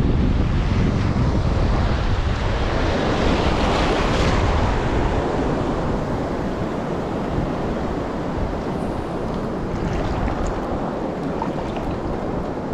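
Waves washing on the shore with wind buffeting the microphone, a steady rush with a heavy low rumble, a little louder in the first few seconds.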